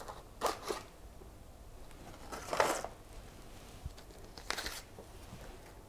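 Small white paper gift box being handled and opened by hand: a few short rustles and scrapes of paper and card, the loudest about two and a half seconds in.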